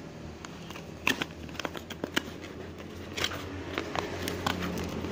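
Cardboard box being handled and its top flap pulled open: a string of sharp clicks and scrapes of cardboard, the loudest about a second in, over a low steady hum.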